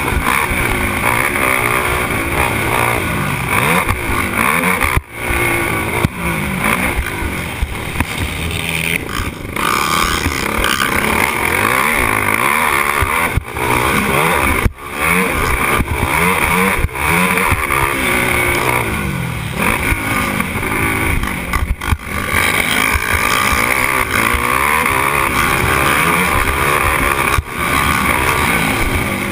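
Racing quad (ATV) engine revving hard, its pitch climbing and falling again and again as the rider accelerates and backs off around the track, heard close up from the rider's helmet. The engine sound drops out sharply and briefly a few times.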